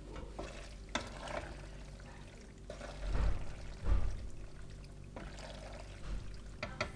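Penne in meat sauce being stirred and tossed with a plastic pasta server in a stainless steel pot: irregular wet mixing and scraping, with two heavier knocks about three and four seconds in and a few sharp clicks near the end.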